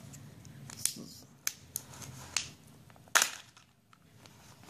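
Kinder Joy egg's foil-wrapped plastic shell being pulled apart into its two halves: a few short crackles and clicks, the loudest about three seconds in.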